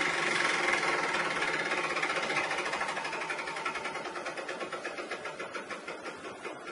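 Window air conditioner's fan and motor making a loud noise likened to an aircraft engine, fading steadily while a rhythmic pulse of a few beats a second comes through and slows, as the unit winds down.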